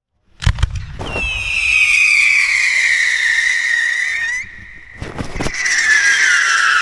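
Fireworks going off: a launch bang about half a second in, then a loud whistle falling in pitch for about three seconds that cuts off suddenly. A second cluster of bangs follows about half a second later, then another whistle sliding down in pitch.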